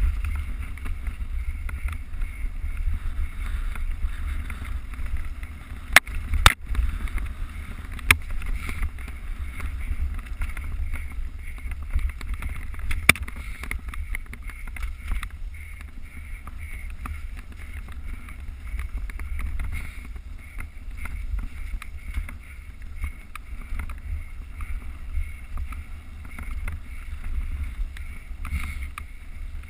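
Mountain bike riding on a trail: wind rumbling over the GoPro's microphone with steady tyre and trail noise, and four sharp knocks from the bike or camera mount between about six and thirteen seconds in.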